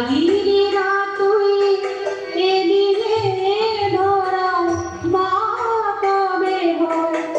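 A woman singing a devotional hymn to the goddess Durga, in long held notes with small gliding ornaments. The phrases break about two seconds in and again near five seconds.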